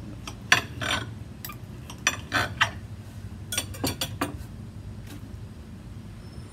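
Knife and fork scraping and clinking against a plate as a pork chop is cut, in several bunches of short scrapes and clicks that stop a little after four seconds in.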